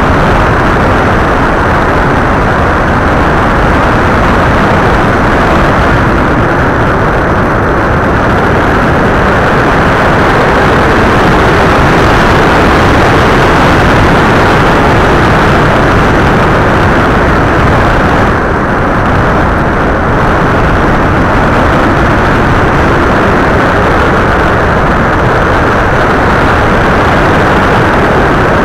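Loud, steady rush of wind over the microphone of an FPV model aircraft's onboard camera in flight, dipping slightly about two-thirds of the way through.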